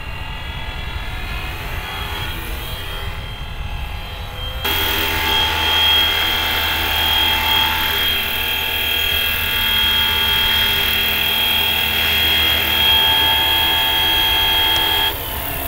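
Fly Wing Bell 206 V3 470-class RC helicopter's brushless motor and rotors giving a steady high whine in flight. It gets louder about five seconds in, and the helicopter is on the ground with rotors still spinning near the end.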